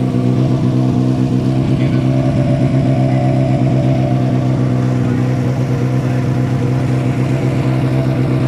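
Rally car engine idling steadily at one even pitch, without revving.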